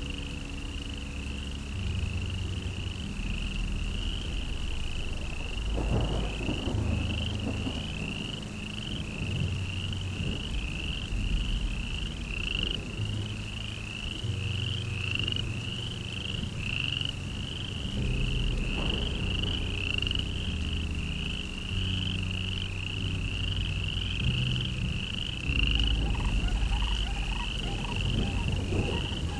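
A frog chorus: a steady, rhythmic high chirping about twice a second, over lower croaking sounds.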